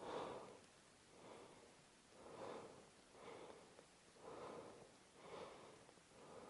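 Faint breathing close to the microphone: soft breaths about once a second, otherwise near silence.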